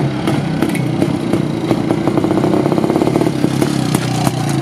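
IZh-49 motorcycle's single-cylinder two-stroke engine running at a steady throttle as the bike rides up and past, with rapid, even exhaust pulses. By the builder's account the knocking in its sound comes from the carburettor throttle slide, not the piston pin or piston.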